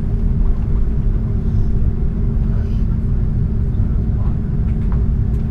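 Airbus A330 cabin noise while taxiing: a steady low rumble from the engines at taxi power, with a constant hum, heard from inside the passenger cabin.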